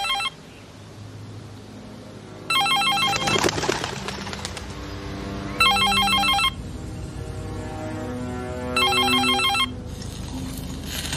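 Mobile phone ringing with an incoming call that goes unanswered: a warbling electronic ring tone in bursts of about a second, the end of one ring at the start and then three more, roughly every three seconds.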